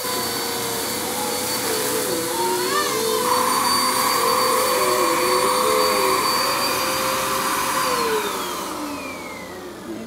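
Bissell PowerForce Compact upright vacuum cleaner running with a steady whine, then switched off about eight seconds in, its pitch falling as the motor winds down. The owner suspects a clog from the sound it is making.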